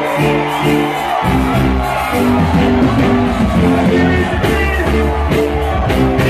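Music with a steady pulsing beat of repeated chords and a singing voice over it; a deep bass line comes in just over a second in.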